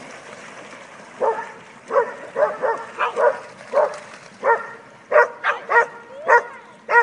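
A dog barking over and over, starting about a second in, at roughly two barks a second and coming faster near the end, over a steady hiss of dogs splashing through shallow river water.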